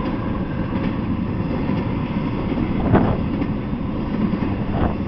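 Intermodal freight train passing at speed, its container well cars and trailer-carrying spine cars rolling over the rails in a steady rumble, with a clank about three seconds in and another near the end.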